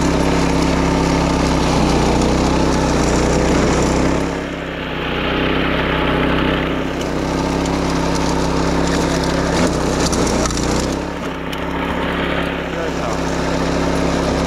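Small engine of a grass-mowing machine running steadily. About four seconds in, and again about eleven seconds in, the engine note dips and a hiss rises over it for a couple of seconds.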